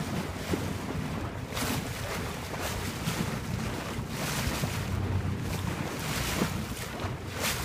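Wind gusting on the microphone and the wash of the sea, over the steady low hum of a boat's engine.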